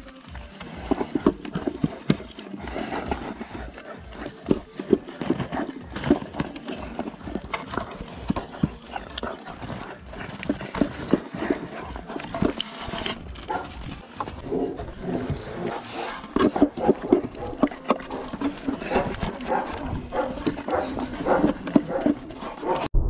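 A dog eating chunks of sausage right at the microphone: rapid, irregular chewing, smacking and snuffling, with its muzzle knocking against the wooden feeder.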